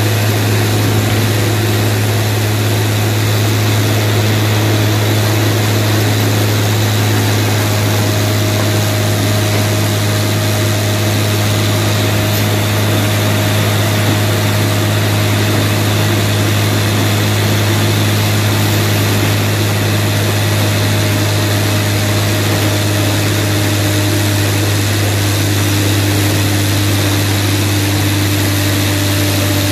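Presse Bull Genius scrap-metal baler's hydraulic power unit running steadily: an even low drone with faint whining tones above it that shift a little now and then.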